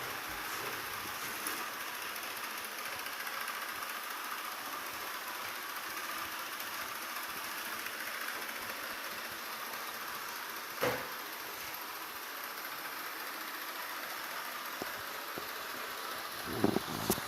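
Ariete Briciola 2711 robot vacuum cleaner running with a steady motor hum and hiss, with a sharp knock about eleven seconds in and a few thumps near the end.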